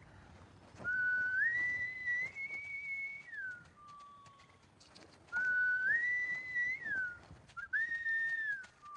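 A man whistling three times. Each whistle starts on a lower note, steps up to a held high note and slides down at the end, and the third is the shortest.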